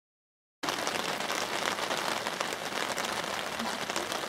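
Steady patter of rain, a dense hiss of fine ticking drops, starting suddenly about half a second in.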